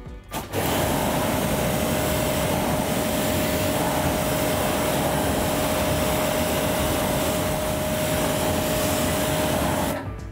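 Pressure washer running, its jet of water hissing onto an alloy wheel to rinse off the wheel cleaner, with a steady whine from its motor under the spray. It starts abruptly about half a second in and cuts off just before the end.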